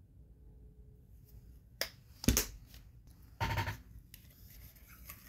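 Sharp plastic clicks and a knock as a paint dropper bottle and a small plastic cup are handled on the work table, followed by light, quick scraping ticks of a stick stirring dark paint wash in the plastic cup.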